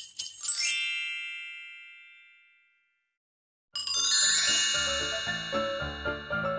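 A bright chime with a glittering rising shimmer rings out and fades away over about two seconds, as an intro sting. After a short silence, a jingly music tune with a regular rhythm starts a little under four seconds in.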